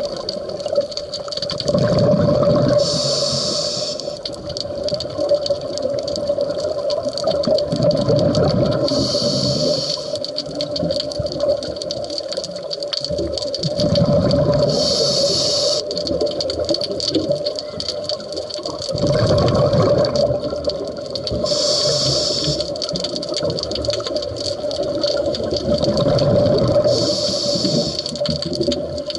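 Scuba diver breathing through a regulator underwater: about five breaths, one roughly every six seconds, each a low burble of exhaled bubbles followed by the hiss of an inhalation through the regulator, over a steady hum.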